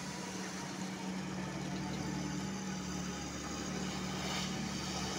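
LiuGong 926E crawler excavator's diesel engine running steadily while the machine works and swings, growing a little louder after about a second.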